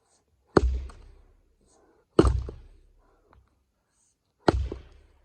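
Fiskars splitting axe striking tamarack rounds: three hard chops, a second and a half to two seconds apart, each with a short ringing tail.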